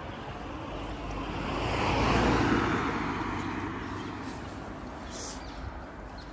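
A car passing close by on a narrow asphalt road. Its tyre and engine noise swells to a peak about two seconds in, then fades as it drives away.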